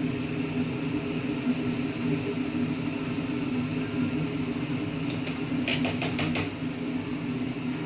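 Steady low mechanical hum, with a quick run of about six light clicks about five to six and a half seconds in.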